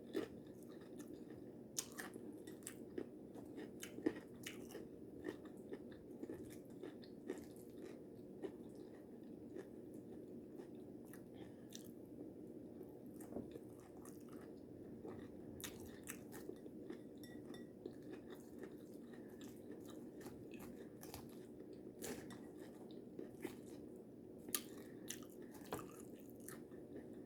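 Faint, close-up chewing and crunching of taco salad made with tortilla chips, a mouthful at a time, with irregular sharp crunches.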